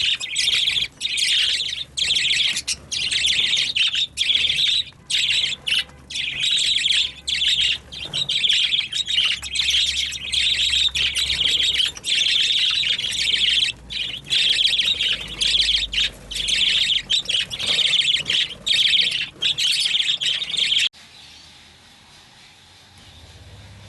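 Budgerigars chirping and chattering loudly without a break, then cutting off suddenly near the end.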